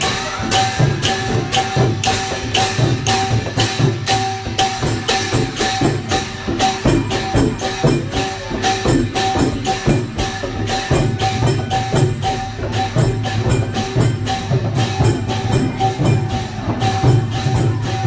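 Lively procession music with fast, even percussion strikes, about four a second, over a steady held tone.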